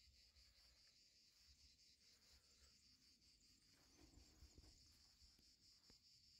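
Very quiet background with faint, steady, high-pitched insect chirring. A faint tap comes near the end.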